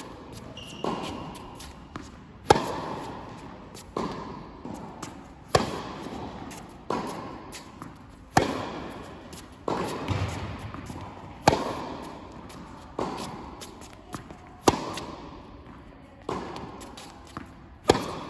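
Tennis rally: rackets striking the ball in turn, about one hit every one and a half seconds, with the near player's shots louder than the far player's. Each hit echoes in a large indoor hall.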